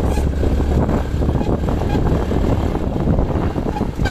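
Motorcycle engine running steadily on a dirt track, with wind rumbling on the microphone.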